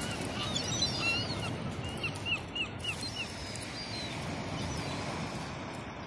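Herring gulls calling: a few short yelping calls in the first second, then a quick run of about five short calls two to three seconds in, over the steady wash of waves on the shore.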